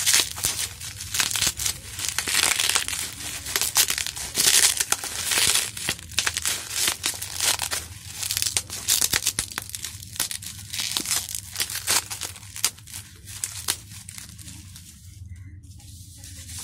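Plastic bubble wrap crinkling and tearing as it is pulled off a cylindrical watch tin, a dense irregular crackle that thins out in the last few seconds.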